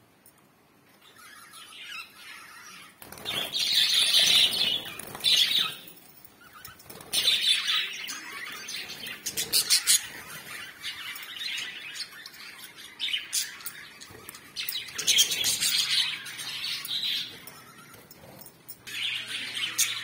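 Several caged budgerigars chirping in bursts of a few seconds, with short quieter pauses between them.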